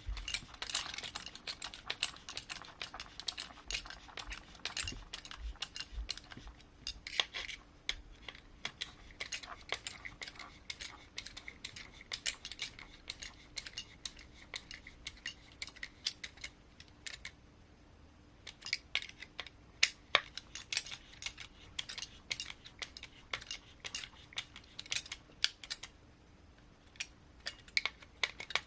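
Irregular clicks and taps of small plastic and metal parts and hand tools being handled while an RC car transmission is assembled on the bench.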